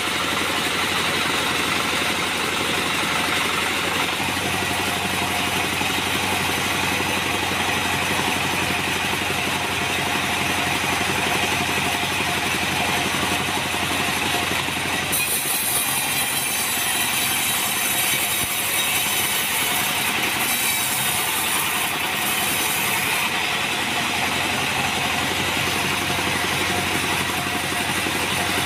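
Band sawmill's engine running steadily with the blade turning but not cutting wood. About halfway through the sound shifts and a high hiss joins it.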